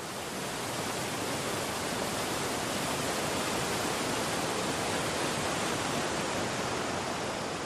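Mountain stream cascading over rocks: a steady rush of white water.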